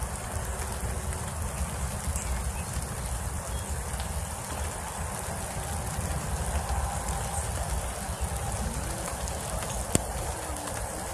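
Steady rain falling, heard as an even hiss, with one sharp tap near the end.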